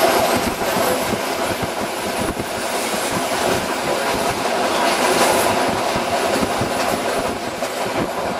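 Passenger train running along the track, heard from inside the carriage: a steady rumbling rush of wheel and track noise with irregular clicks of the wheels over the rail joints.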